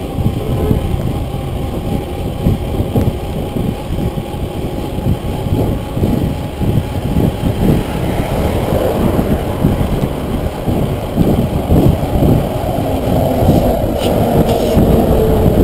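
Wind buffeting the microphone of a camera on a mountain bike riding through city traffic, with a continuous low rumble. From about halfway a steady engine drone grows louder as a bus comes alongside.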